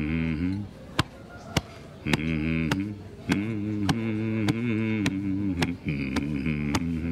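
A man hums a low, wavering 'mm-mm' chant in short phrases while beating his chest with his fist, the thumps coming about twice a second.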